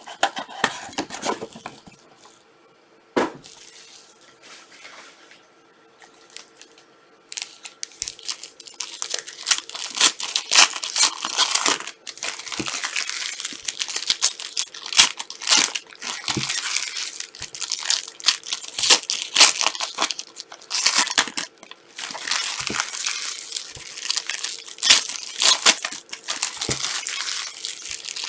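Trading card pack wrappers being torn open and crinkled by hand, with one sharp click about three seconds in and a dense run of crinkling and tearing from about seven seconds on.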